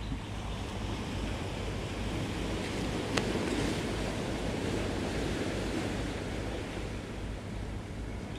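Sea waves washing onto a rocky shore, a wave swelling up about three seconds in, with a single sharp click at that moment. A low wind rumble on the microphone underneath.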